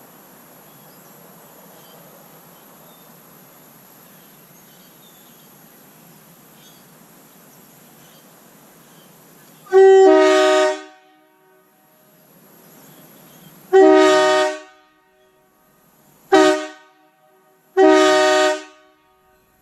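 Nathan Airchime K2 air train horn sounding on bells 1 and 2, a two-note chord, in four blasts after about ten seconds of quiet hiss. Three blasts last about a second each; the third is shorter.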